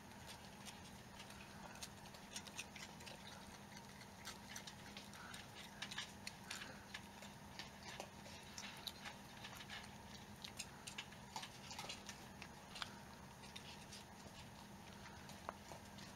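Baby raccoon chewing food held in its paws: faint, irregular crunching clicks over a steady low hum.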